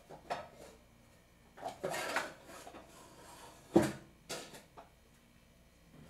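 Dishes and kitchenware being handled: a light knock early, a scraping rustle about two seconds in, then a sharp thud just before four seconds, the loudest, followed by a couple of softer taps.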